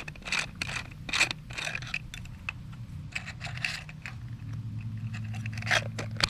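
Zippo Typhoon match kit's plastic case being handled and opened: a string of short scrapes and clicks. A steady low hum comes up about two-thirds of the way through.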